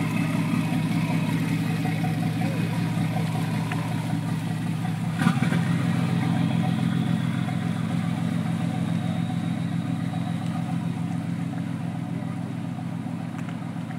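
Fishing boat's inboard engine running steadily as the boat pulls away, growing gradually fainter over the second half. There is one sharp knock about five seconds in.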